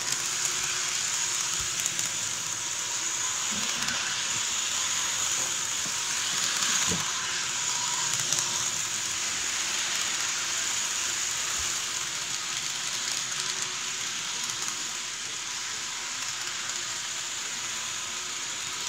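Toy train running around its plastic track: a steady, hissy rattle of the little motor and wheels, with a few soft knocks.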